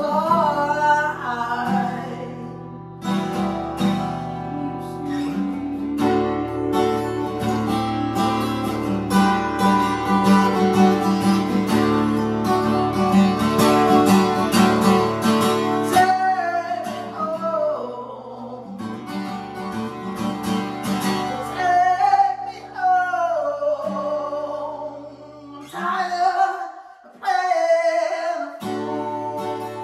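Acoustic guitar played through an instrumental passage of a song, with a man's voice singing long held notes over it in places.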